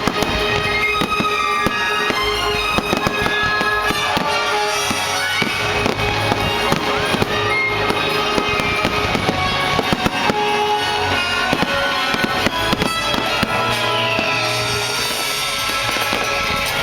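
Fireworks bursting and crackling in rapid succession, many bangs a second, over music playing at the same time.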